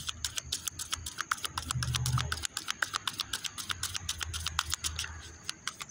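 A deck of oracle cards shuffled by hand: a quick, even run of crisp card flicks and snaps, several a second.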